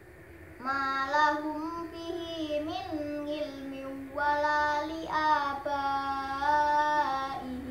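A boy's voice reciting the Qur'an in melodic tartil style, in two long phrases of held, gliding notes with a short break between them.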